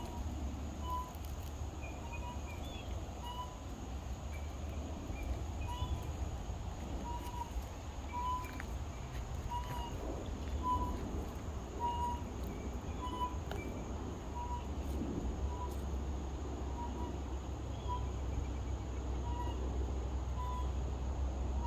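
Outdoor ambience of small birds chirping, with a short steady note repeating about once a second over a steady low rumble.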